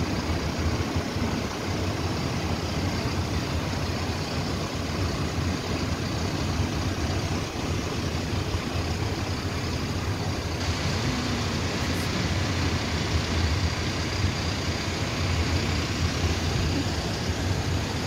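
A vehicle's engine idling steadily, heard from the cab through an open window, mixed with the wash of surf breaking on the beach.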